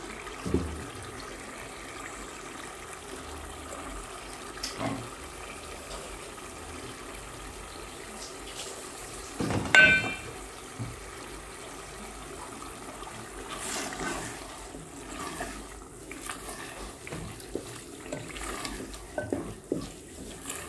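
Wooden spoon stirring chopped capsicum into tomato sauce in an aluminium pot, over a steady hiss from the pot on the gas stove. About ten seconds in comes a sharp knock with a brief metallic ring as the spoon strikes the pot, and there are softer knocks and scrapes near the end.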